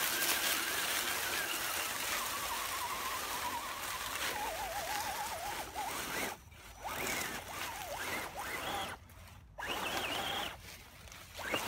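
Electric motor and gear whine of an Axial SCX10 RC rock crawler climbing a steep slope, its pitch wavering up and down with the throttle, over a rustle of dry leaves under the tyres. In the second half it cuts out briefly a few times as the throttle is let off.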